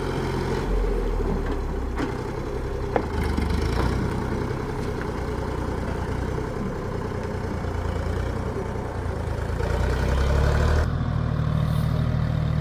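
An engine idling steadily, a low hum that holds throughout, with a couple of sharp clicks about two and three seconds in.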